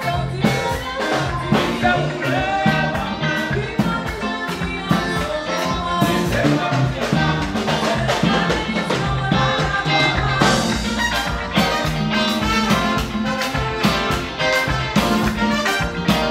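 Live band playing an up-tempo number with a steady beat: electric guitar, drum kit and congas, with tenor saxophone and trumpet.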